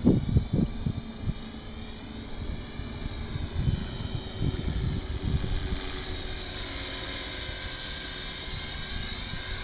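Align T-Rex 450 Pro electric RC helicopter in flight, its motor and rotor blades giving a high whine that rises and falls in pitch and grows louder and steadier in the second half as the helicopter comes closer. A few low thumps in the first second and again around the middle.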